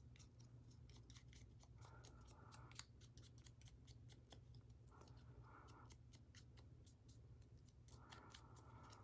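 Faint, quick tapping and rubbing of a foam sponge dauber dabbing ink onto the edges of die-cut cardstock poinsettia petals, with a few short, soft brushing strokes.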